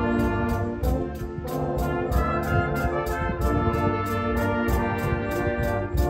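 Concert band playing, with the brass prominent: sustained chords over a steady light percussion beat of about three strokes a second.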